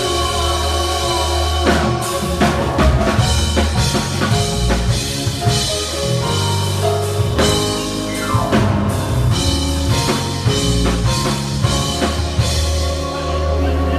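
Live band playing: a drum kit with busy snare and bass-drum hits and cymbal crashes over held keyboard chords and a bass guitar line. The drum hits come in about two seconds in.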